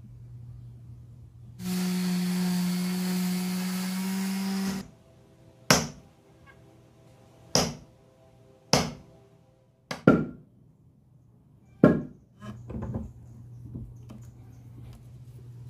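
A power tool runs for about three seconds with a steady hum and stops. Then come five sharp, loud knocks with a short ring, 1 to 2 seconds apart, from a wooden sledgehammer handle being struck while the head is fitted. A few lighter knocks follow near the end.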